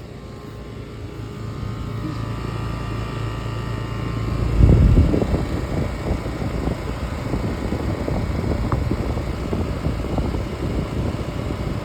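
Outdoor air conditioner condenser unit running, its compressor and fan giving a steady low hum. About four and a half seconds in, a loud, rough rush of air rises and carries on over the hum.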